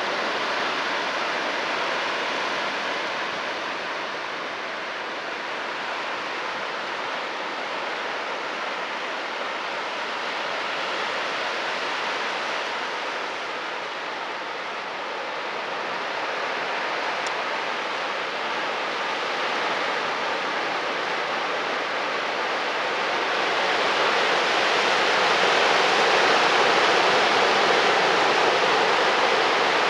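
Pacific surf breaking and washing over a rocky cobble shore: a steady rushing hiss that swells louder about three-quarters of the way through.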